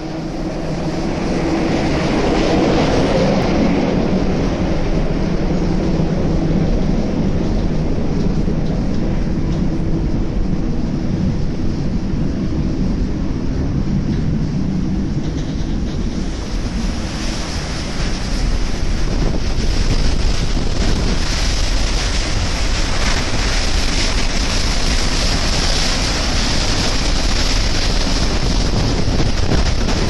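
Rough open sea rushing and breaking along a container ship's hull, with wind buffeting the microphone, over a steady low hum. The hiss of wind and spray grows stronger in the second half.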